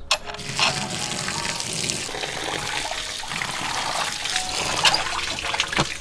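Water running from an outdoor metal tap and splashing over hands into a concrete basin. It starts suddenly, as a steady rushing splash with a few sharper splashes.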